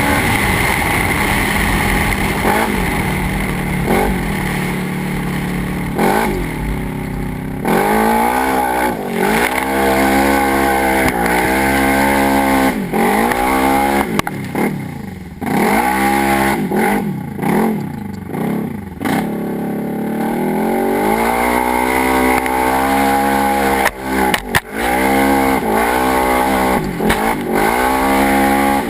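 Polaris RZR 900 XP side-by-side's parallel-twin engine running under load, then revving up and falling back again and again as the throttle is worked. For the first several seconds a steady rushing noise runs under it, and a couple of sharp knocks come near the end.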